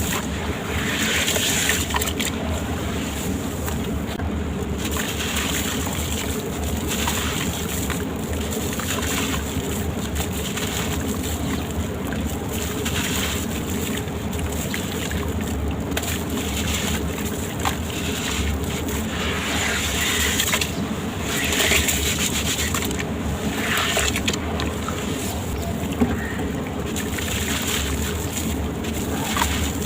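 Gritty sand-cement shapes crumbling, in repeated short bursts of crunching and crackling, over a steady low hum.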